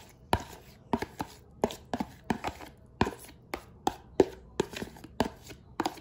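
Repeated sharp taps of a kitchen utensil, two to three a second and unevenly spaced.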